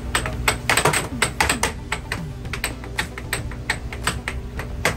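Air hockey rally: the plastic puck cracking against the mallets and the table's rails in quick succession, the hits coming fastest in the first couple of seconds and then more spaced out, over the steady low hum of the table's air blower.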